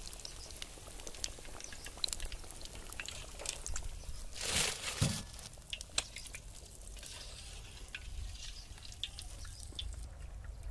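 Hot oil crackling in a kadai as egg pakoras deep-fry, with scattered small pops and clicks. About halfway through comes a brief louder rush ending in a thud, as the fried pakoras are tipped from the skimmer into a steel colander.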